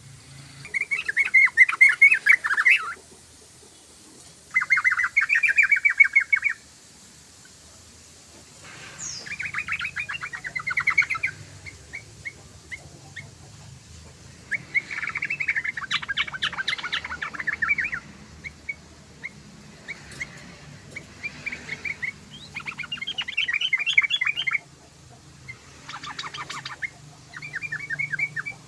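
Yellow-vented bulbul (trucukan) singing in bursts of rapid, bubbling chattering notes. Each phrase lasts a second or two and repeats after short pauses, with scattered single chips between them.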